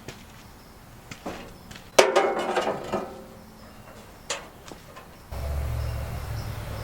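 Metal parts and tools knocking and clinking, with one loud ringing metallic clank about two seconds in. A steady low rumble starts abruptly a little after five seconds.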